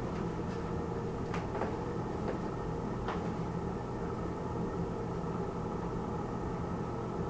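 Film projector running: a steady mechanical hum with several fixed tones, and a few faint clicks in the first three seconds.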